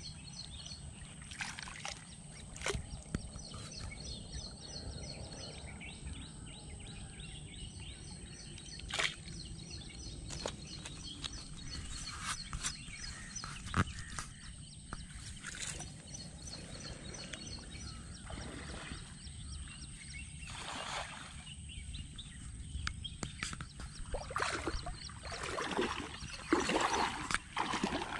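Water sloshing and splashing around legs wading through shallow water, with scattered small splashes, growing louder over the last few seconds. A rapid series of high chirps runs through the first third.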